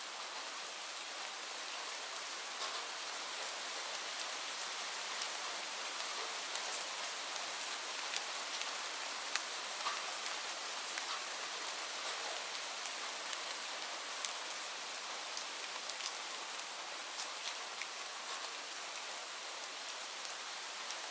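Steady rain falling on leaves, an even hiss with many separate drops ticking sharply here and there.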